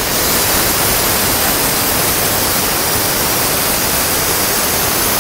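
Miller Spectrum 625 Extreme plasma cutter's arc cutting through stainless steel sheet: a loud, steady hiss.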